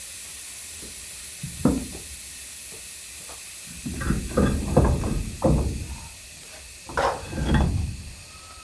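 Dull, heavy thuds and knocks from heavy van tyres being rolled and handled: one about two seconds in, a quick run of them around the middle, and two more near the end.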